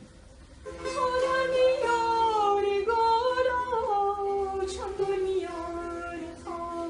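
A woman singing a slow melody, entering about a second in with long held notes that slide between pitches.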